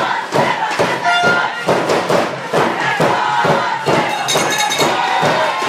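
Sideline crowd cheering and chanting over a steady beat of about two strikes a second, like a fans' drum. About four seconds in, a metallic rattle or clinking joins in.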